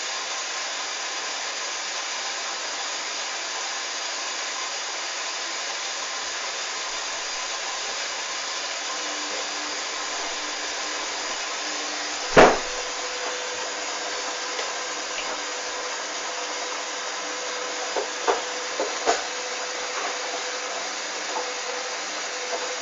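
Hoover DYN 8144 D washing machine running mid-cycle: a steady rushing hiss throughout, a loud clunk about halfway, after which a faint steady hum sets in, then a few lighter knocks near the end.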